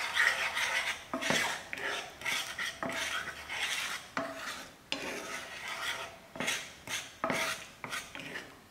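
Wooden spoon scraping around a frying pan in repeated, irregular strokes, stirring water and sugar so the sugar dissolves for a syrup.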